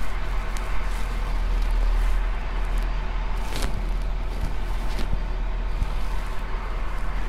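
A truck's engine running low and steady as it creeps along, with a couple of brief clicks in the middle.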